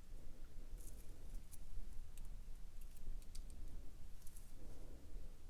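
Light, scattered metallic clicks of small jewellery parts, a chain, a clasp tube and pliers, being handled, over a low steady hum.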